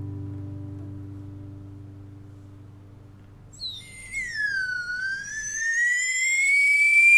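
Acoustic guitar music fading out, overlapped about halfway in by a small hand-held whistle blown in one long note that dips in pitch, then climbs slowly and grows louder.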